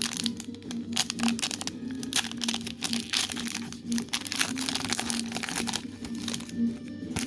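Crinkling of a foil Pokémon booster pack wrapper and trading cards being handled, a dense run of irregular crackles.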